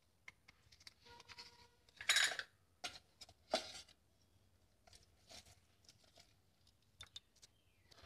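Light kitchen handling: a plastic tomato-sauce sachet rustles as it is squeezed out and set aside, with a few soft knocks and scrapes against a steel plate. The loudest is a short rustle about two seconds in.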